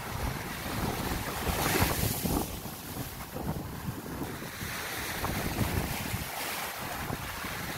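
Small sea waves breaking and washing over shallow sand, with wind rumbling on the microphone; a louder wave washes in about two seconds in.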